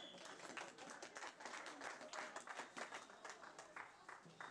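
A small crowd of spectators clapping, a scattered round of applause made of many quick overlapping handclaps, faint and distant.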